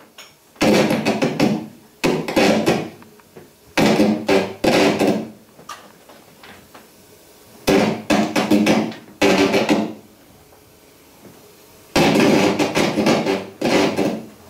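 Flurries of rapid struck percussion, clattering hits with a ringing tone, each flurry lasting about a second, about seven in all with short pauses between them.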